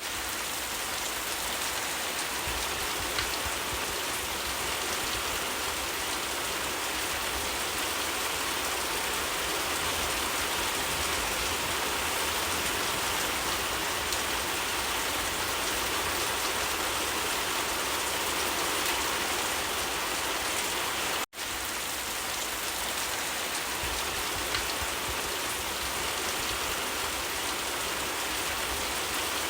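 Steady rain falling on leaves, an even hiss of many drops. It cuts out for a split second about two-thirds of the way through.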